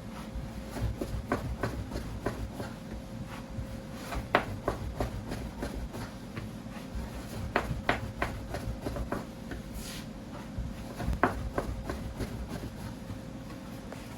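Dumpling-making at a food stall: irregular sharp taps and knocks of kitchen work, a few louder ones, over a steady low hum.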